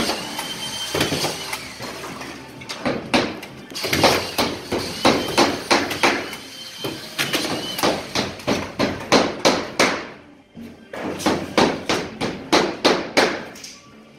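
Hammer driving nails through plasterboard into timber studs, in quick runs of sharp strikes with short pauses between.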